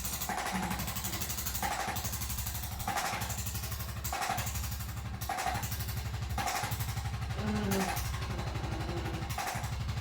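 Percussive massage gun running: a fast, even rattle of rapid strokes, its sound swelling about once a second.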